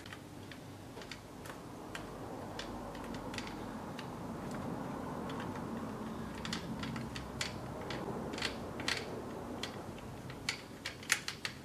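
A stock tool unscrewing the stock bolt of a Merkel RX Helix rifle: irregular light clicks and ticks over a low, steady rubbing. The clicks come more often in the second half.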